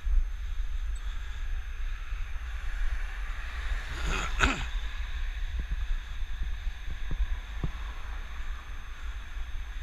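Wind rumbling on a helmet-mounted camera's microphone on a moving bicycle. About four seconds in, a car passes close by, its sound rising and falling away within about a second.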